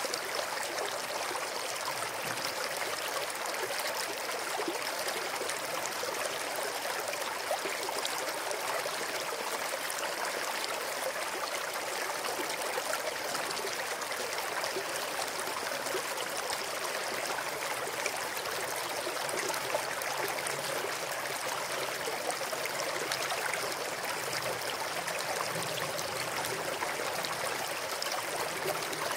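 Small mountain stream flowing over rocks: a steady rush of water with fine trickling and splashing.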